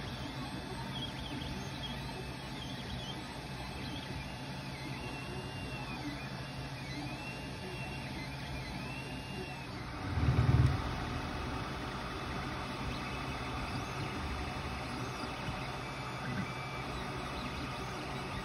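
Ender 3 Pro 3D printer running a print: stepper motors whirring in rising-and-falling pitch sweeps as the print head moves, over the steady hum of its cooling fans. A short low thump about ten seconds in.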